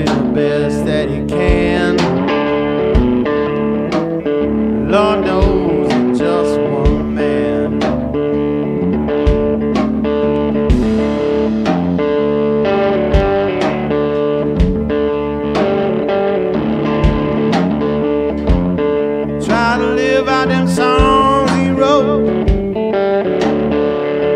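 Background music: a guitar-led blues song with singing and a steady beat.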